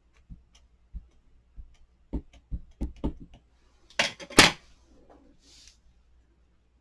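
Rubber stamping at a craft table: a run of light taps and clicks as the stamp is inked and handled, then two louder, sharper clacks about four seconds in.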